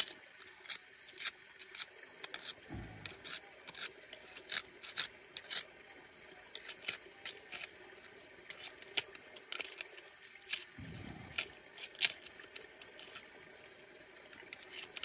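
Small steel pick scraping and prying packed dirt and grit out of a crack in bedrock, crevicing a boil hole for gold: irregular sharp scrapes and clicks of metal on rock.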